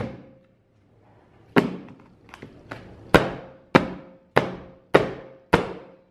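An upturned metal baking tin lifted and banged down on a plastic cutting board, a run of hard knocks about one every half second, each ringing briefly, with fainter taps between. The cake is stuck in the tin and the knocking is not shaking it loose.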